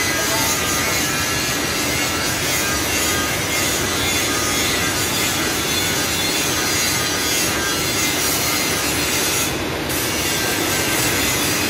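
Steady workshop machinery noise, loud and even with no pauses.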